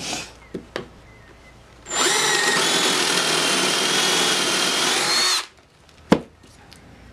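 Cordless drill boring a counterbore into a cedar block, running steadily at full speed with a high whine for about three and a half seconds, then stopping. A single sharp knock follows about a second later.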